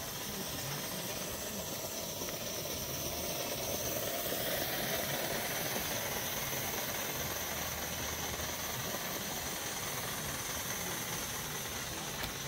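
Coal-fired gauge 1 live-steam model locomotive giving off a steady hiss of steam as it runs.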